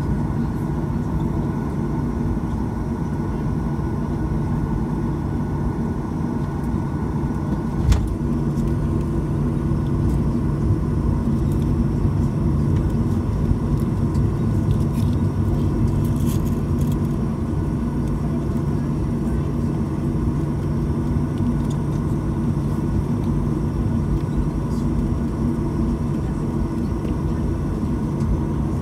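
Cabin noise of a Boeing 737-900ER taxiing, heard from inside the cabin: its CFM56-7B engines run at low taxi thrust with a steady hum and several held tones. A single sharp knock sounds about eight seconds in.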